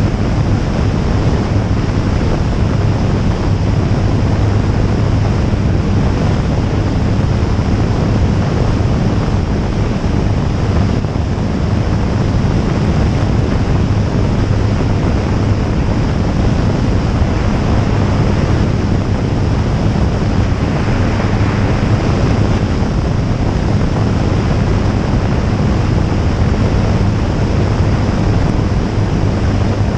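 Jabiru J160 light aircraft in flight: its engine and propeller drone at a steady low pitch under loud, steady wind rush on the microphone.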